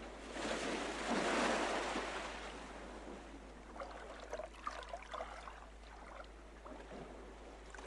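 Surf washing in: a rush of water noise that swells to a peak about a second and a half in, then recedes, followed by a few faint light clicks.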